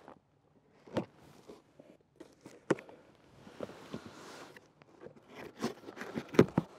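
Packing tape being pulled and torn off a long cardboard box, with scattered knocks and scrapes of hands handling the cardboard and a ripping rustle in the middle. The sharpest knock comes near the end.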